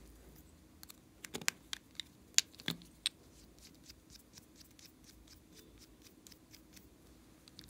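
Small plastic items being handled over a glass tray: faint ticks and taps throughout, with a cluster of sharp clicks between about one and three seconds in.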